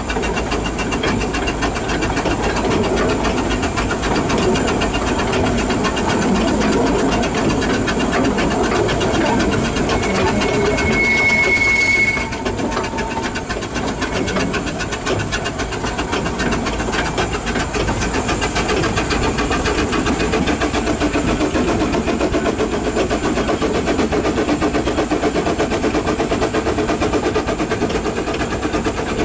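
Hunslet narrow-gauge steam locomotive working a passenger train, its exhaust beats coming in a rapid, even rhythm from the chimney. About eleven seconds in, a brief high steady tone sounds, and the beat eases for a moment before picking up again.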